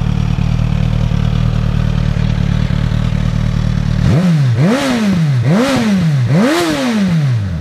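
2015 Suzuki GSX-S1000's inline-four engine idling through its stock exhaust, then revved hard three times in quick succession from about four seconds in. Each rev climbs sharply and falls back, and the last goes highest, up toward 10,000 rpm for the exhaust's peak reading of 108.9 dB.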